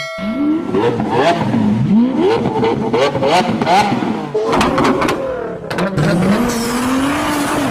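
Sports car engine revving hard and accelerating up through the gears, its pitch climbing and dropping back with each shift several times in quick succession, then one longer, slower climb.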